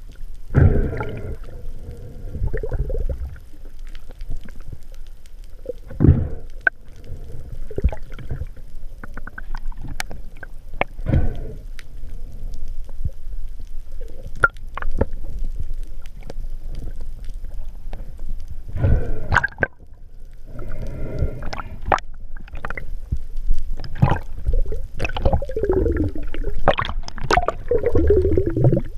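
Underwater sound through a diving camera's housing: water rushing and gurgling in swells, with scattered sharp clicks and several louder knocks from the diver's movement and from handling the speared hogfish and spear.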